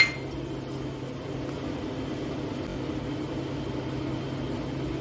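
Steady low mechanical hum of background noise, with one short sharp clink at the very start.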